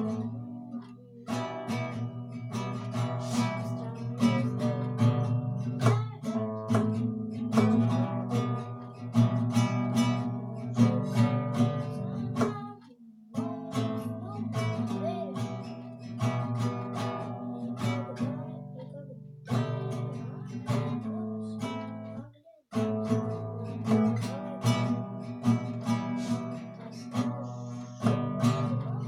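Acoustic guitar strummed in a steady rhythm of chords, with brief breaks about thirteen and twenty-two seconds in.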